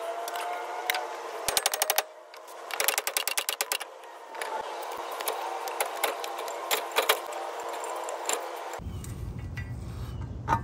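Rapid metallic clicking and rattling in short runs about a second long, with scattered clinks between, as a pickup's front steering knuckle and ball joint hardware are worked by hand.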